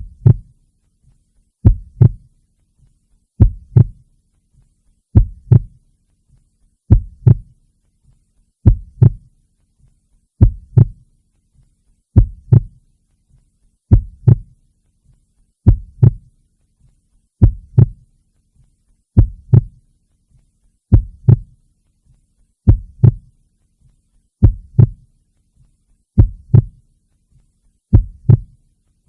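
Slow heartbeat: a lub-dub pair of low thumps repeating evenly about every one and three-quarter seconds.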